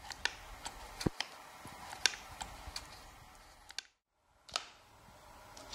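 Light metallic clicks and knocks from the metal parts of a TV-4 lathe apron being handled and worked by hand: about a dozen scattered ticks, with a short silent break about four seconds in.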